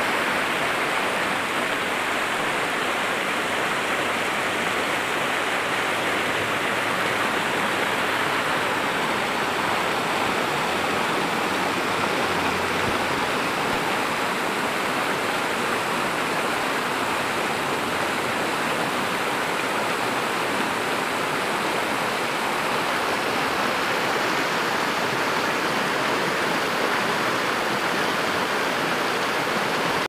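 Creek water rushing over rocks and a low ledge in a steady, unbroken whitewater rush.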